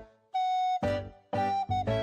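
Background music: a light melody of short, separate notes, with one note held for about half a second near the start.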